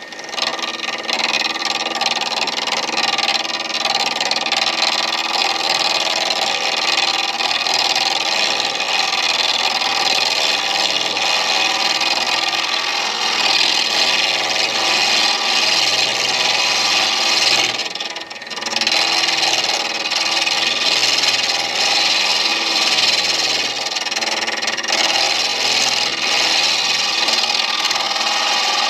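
Midi lathe running while a tool cuts a spinning deer-antler pen blank, a steady scraping. It breaks off briefly about two-thirds of the way through, then resumes.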